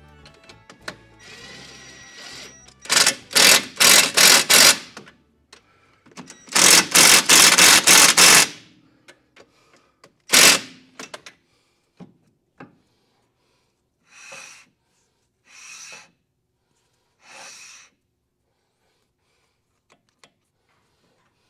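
Cordless impact tool tightening the bolts of a new disc brake caliper in a series of loud short bursts. A run of quick pulses comes first, then a longer run and a single burst. Near the end there are three shorter, quieter bursts.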